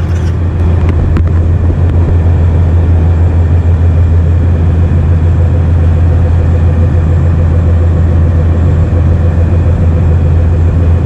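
Passenger ferry's engines running steadily while the ferry is underway: a loud, constant low hum under an even rushing noise.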